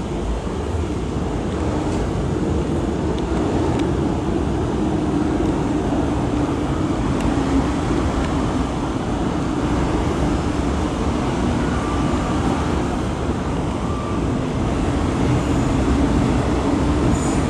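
An MTR M-Train electric multiple unit running through a subway station without stopping, heard through the platform screen doors. A steady rumble that builds over the first few seconds and then holds.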